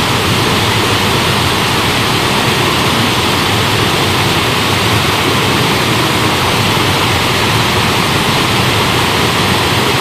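Water pouring over a low concrete weir and churning white at its foot, heard close up: a loud, steady rush.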